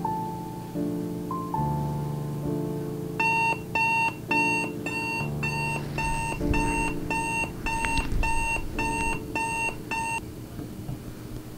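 Digital alarm clock beeping about twice a second, starting about three seconds in and stopping abruptly near the end as it is switched off. Soft piano music plays underneath.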